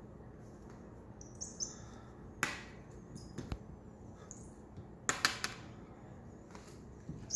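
Cat wand toy's mouse lure knocking and dragging on a hardwood floor as a cat bats at it: scattered light taps, with a quick cluster of three knocks about five seconds in. A few short, high squeaks come between them.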